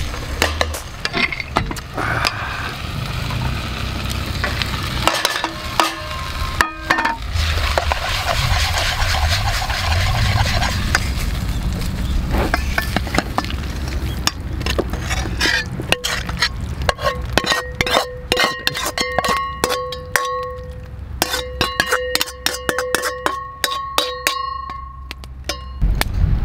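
Food sizzling in a wok over a fire while a metal ladle stirs and scrapes it. In the second half the ladle clanks repeatedly against the wok and a stainless steel pot as the food is scooped across, and the struck metal rings after each hit.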